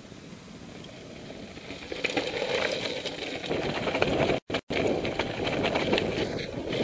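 Mountain bike on a loose rocky trail, picked up by a helmet camera: tyres crunching over stones and the bike rattling. Quieter for the first two seconds, then much louder, with two brief dropouts about halfway.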